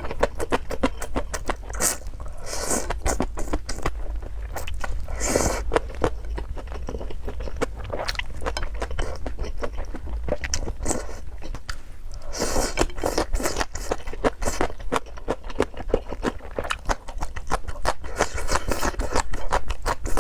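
Close-miked eating: crunchy chewing and biting, a dense run of sharp crackly clicks, with a few longer scraping crunches.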